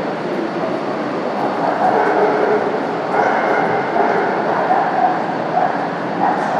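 Railway station platform ambience: a steady din of crowd and machinery, with a run of short, repeated pitched calls from about two seconds in.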